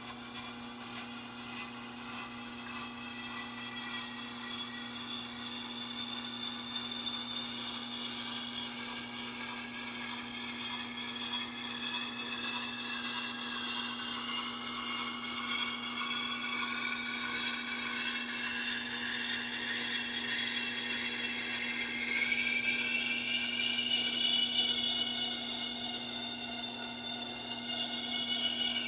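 Sharpening stone drawn along the edge of a high-carbon German steel Santoku clamped in a guided sharpening jig: a continuous scratchy grinding of abrasive on steel with a wavering high squeal, raising a bevel on the second side.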